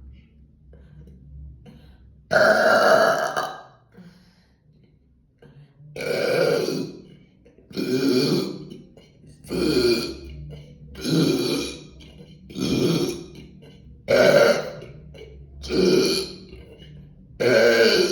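A woman burping loudly nine times. The first burp, about two seconds in, is long; after a pause come eight shorter ones, roughly every second and a half.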